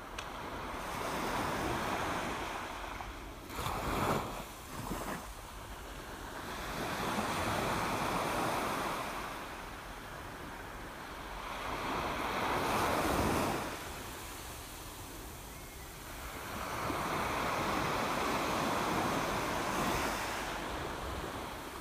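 Sea waves washing in and out over a rockpool, the wash swelling and fading about every five seconds, with a short burst of splashing about four seconds in.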